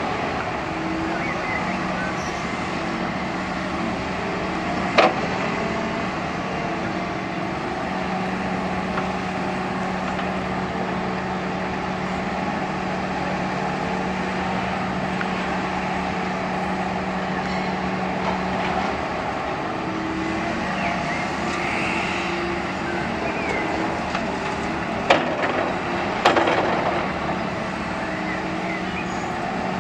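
Diesel engines of Volvo excavators running steadily as they dig and load tipper trucks. A few sharp knocks cut through: one about five seconds in and two close together near the end.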